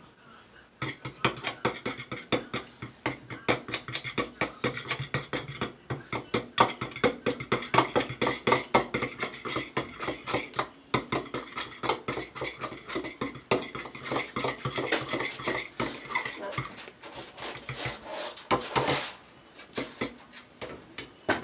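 Eggs being beaten with a metal utensil, which clicks rapidly and steadily against the dish for most of the stretch and slows to scattered clinks near the end.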